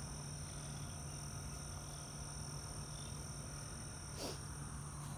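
Faint steady outdoor background: a thin high-pitched drone and a low hum, with one faint brief call a little after four seconds in.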